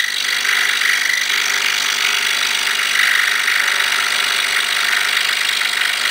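Excalibur 21-inch scroll saw running steadily, its No. 5 reverse-tooth blade cutting through a wooden plaque on a bevel cut.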